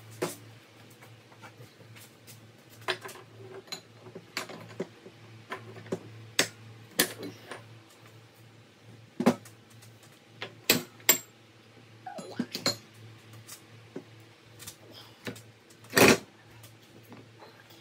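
Irregular clicks and knocks from hand tools and bike parts being handled during work on the swingarm bearings, with one louder knock about sixteen seconds in, over a steady low hum.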